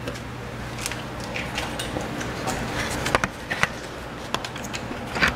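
Scattered light clicks and taps of drum-brake parts being handled as the adjuster is fitted between the brake shoes, over a steady low hum.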